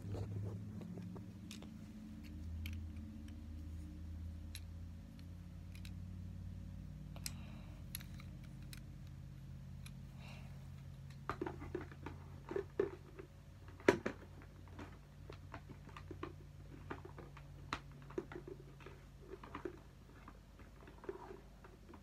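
A plastic toy figure and its display stage being handled and set up: scattered small clicks and taps, thickening from about halfway through, with one sharp knock a little after that, over a low steady hum.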